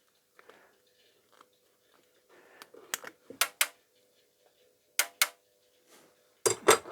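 Small metal gearbox parts of a two-stroke moped engine clinking as they are handled: a few sharp clicks, mostly in pairs, some with a short metallic ring.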